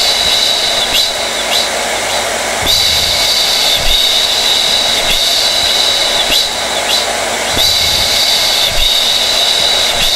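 Hair dryer running continuously: a steady rushing of air with a high-pitched motor whine that grows stronger and weaker every few seconds.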